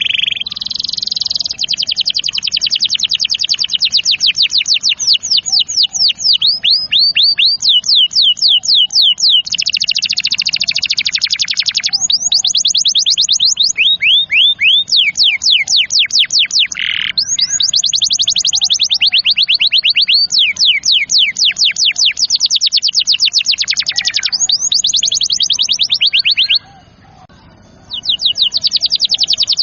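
Domestic canary singing long, rapid trills (rolls) of repeated notes, switching from one trill type to another every few seconds, with a brief pause near the end.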